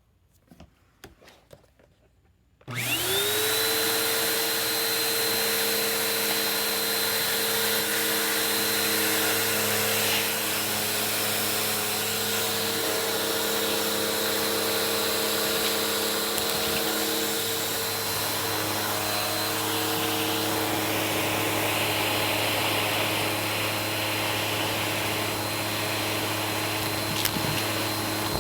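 A few faint clicks, then a vacuum cleaner switched on a little under three seconds in, its motor spinning up to a steady high whine and running on while vacuuming carpet.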